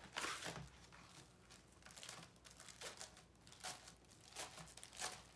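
Packaging crinkling and rustling in irregular bursts as a valet tray is unwrapped, loudest right at the start.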